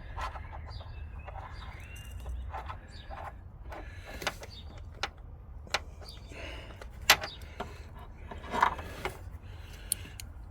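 Scattered metallic clicks, taps and knocks of hand tools and engine parts being handled during reassembly of a car engine, the sharpest about seven seconds in, over a steady low rumble.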